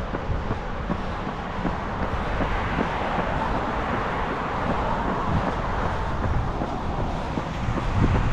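Road traffic noise, a steady hum with a vehicle passing in the middle, swelling and fading.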